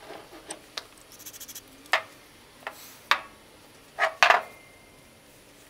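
Several sharp knocks and clicks as a metal spray can and hand tools are set down and handled on a wooden workbench, the loudest a double knock near the end.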